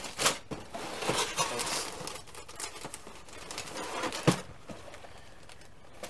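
Plastic bag of plastic model-kit sprues crinkling and rustling as it is handled in a cardboard box, with small clicks of the parts shifting. There is a sharp knock about four seconds in, then only faint rustling.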